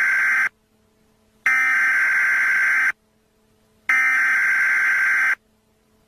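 Emergency Alert System SAME header: harsh, buzzy digital data bursts. The first burst ends about half a second in, then two more of about a second and a half each follow, a second apart. The sequence marks the start of a new emergency alert message.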